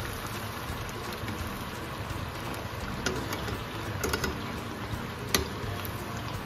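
Chicken thigh pieces deep-frying in hot oil in a stainless steel saucepan, sizzling steadily during the second, hotter fry that crisps them. A few sharp clicks of metal tongs against the pan, the loudest about five seconds in.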